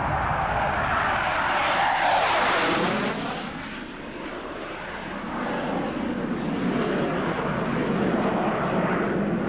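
Sukhoi Su-25 attack jet's twin turbojet engines on a low display pass. The jet noise is loudest about two seconds in and drops in pitch as it goes by, fades a little, then builds again as the jet turns back.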